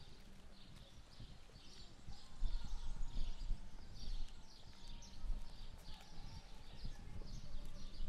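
Birds chirping over and over, with a low rumble coming in a couple of seconds in.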